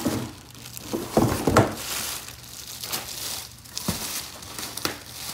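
Packaging being handled in an opened shipping box: plastic wrap and paper crinkling and rustling, with a handful of sharp knocks.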